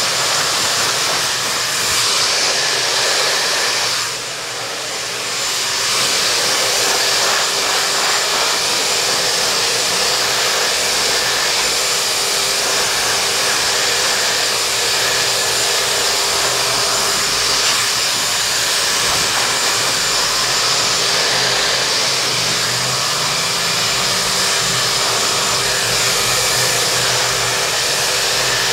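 Handheld hair dryer blowing steadily close to the head while a man's permed hair is blow-dried into shape, a steady hum under the rush of air. The level drops briefly about four seconds in, then comes back.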